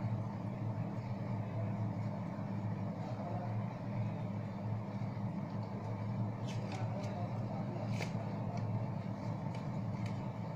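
Steady low hum in the background, with a few faint crisp ticks of paper being handled and unfolded, mostly about six to eight seconds in.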